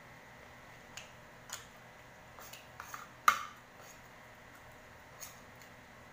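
A spoon and fork clink and scrape against a plate in a few light clicks. One sharp, ringing clink about three seconds in is the loudest.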